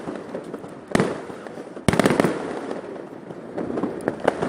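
New Year fireworks going off: two loud bangs about one and two seconds in, each trailing off, then a dense run of smaller rapid pops near the end.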